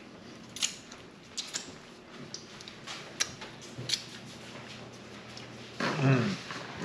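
Scattered light clicks and ticks, about seven in four seconds, from things being handled on a kitchen counter. A brief voice sound comes about six seconds in.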